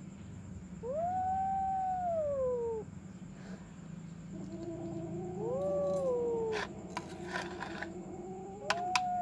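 Small kitten meowing in long, drawn-out calls that rise and then fall in pitch: one about a second in, a longer lower one through the middle, and another starting near the end. A few sharp clicks of a spoon against the plastic food bowl come in the second half.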